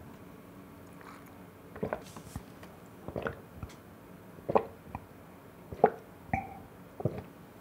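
A person gulping down a glass of drink: about six swallows, each a short separate gulp roughly a second apart.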